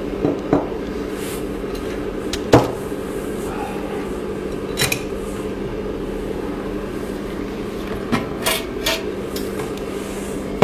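Steady machine hum with a handful of sharp knocks and clinks from hard objects being handled. The loudest knock comes about two and a half seconds in, and a quick cluster follows near the end.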